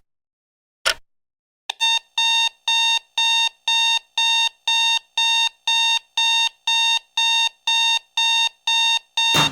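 Alarm clock beeping: a steady run of short, shrill electronic beeps, about two a second. It starts after a single sharp click about a second in and cuts off suddenly with a loud thump near the end.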